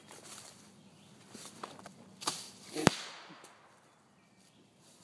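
Firecracker pops: a couple of small sharp pops, then one loud crack about three seconds in that fades off in an echo.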